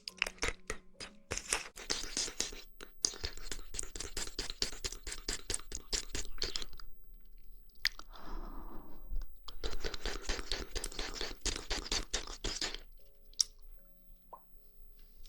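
Close-miked mouth sounds of chewing jelly: rapid wet clicks and squelches in two long runs, with a short softer noisy sound in the pause between them and one sharp click afterwards.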